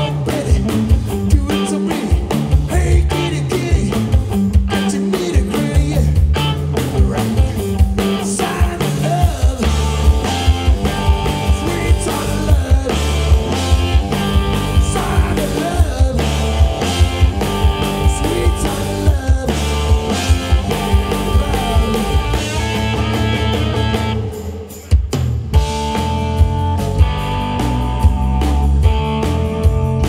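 Live hard rock played by a power trio: distorted electric guitar, bass guitar and drum kit with a steady beat. The band stops for a moment about 25 seconds in, then comes back in.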